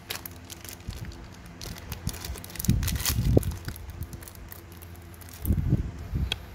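Zippo lighter being handled: a scattering of sharp metal clicks and taps, with low muffled handling thumps around the middle and again near the end.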